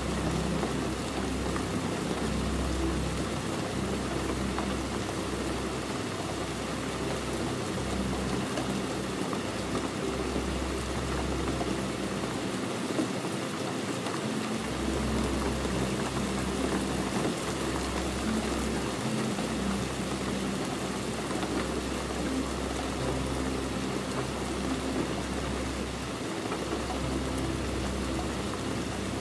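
Steady rain pattering on a vehicle window, with a low rumble underneath that drops out now and then.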